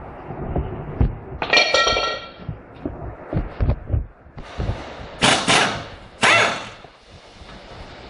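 Metal clanks and knocks from a car's rear wheel hub assembly and brake parts being handled during a hub bearing replacement. There is a ringing metallic clang about a second and a half in, then two short, loud hissing bursts a little past the middle.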